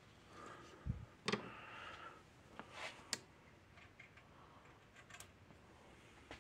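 Scattered small clicks and taps, with a dull thump about a second in: tools and parts being handled while working on a fence energizer's circuit board.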